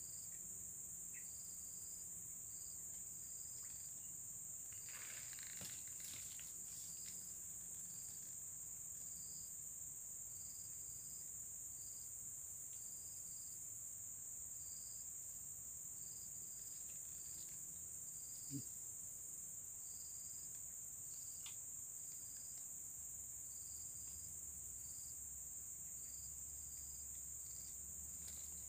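Insects calling: a steady high-pitched drone with a second insect chirping in short pulses about once a second. A soft knock sounds once about two-thirds of the way through.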